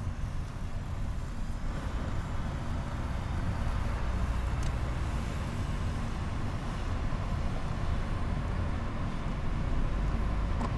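Steady road and engine noise heard inside a moving car's cabin: a low rumble from the tyres and engine while cruising.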